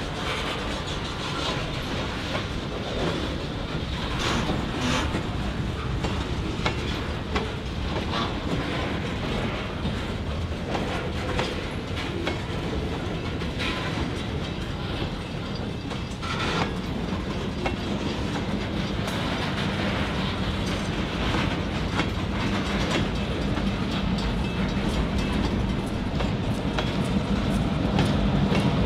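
Loaded freight cars rolling past, their wheels clicking over rail joints against a steady rumble. In the second half the drone of the non-turbocharged EMD 645 diesels of GP38-2 locomotives grows steadily louder as they approach.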